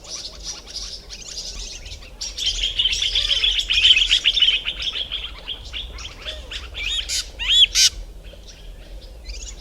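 Small garden birds giving rapid, harsh scolding alarm calls while mobbing a spotted eagle-owl. A loud burst of dense chatter starts about two seconds in and lasts a few seconds, followed by a few loud, sharp single calls.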